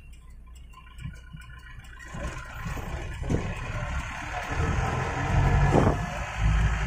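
Jeep engine and road noise as the jeep drives along a rural road, growing louder about two seconds in and louder again near the end.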